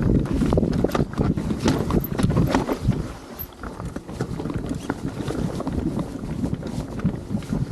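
Mountain bike rolling over rough rocky ground: tyres rumbling, with scattered knocks and rattles from the bike and wind on the microphone. It is louder for the first few seconds, then eases off.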